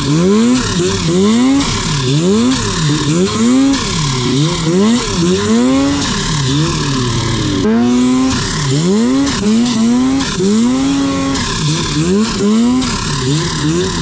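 Snowmobile engine revved up and let off over and over, about once a second, with a couple of longer held revs. This is the sound of a sled being worked free after getting stuck in deep snow.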